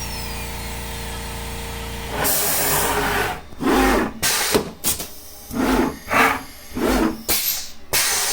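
Steady CNC router machine hum, then about two seconds in an air duster starts blowing at the tool-length probe: a sudden hiss that breaks into repeated sharp blasts of air, roughly one or two a second.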